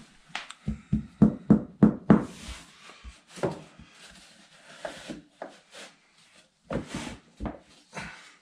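Laminate flooring plank knocked and set into place on the floor: a quick run of about six thumps about a second in, then scattered knocks.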